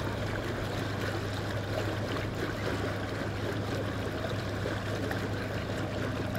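Narrowboat's engine running steadily at cruising speed, a low even drone, with the rush and trickle of river water along the hull.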